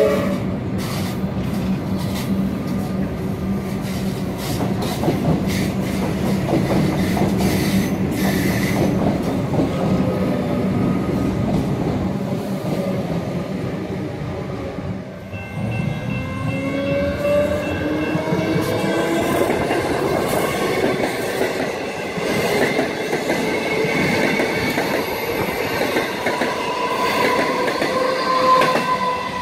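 Alstom Comeng electric train pulling away, its wheels clicking over the rail joints and its motors whining as it moves off and draws away. About halfway through, a second electric suburban train is heard passing, its motor whine rising in pitch as it gathers speed, with steady high tones over it.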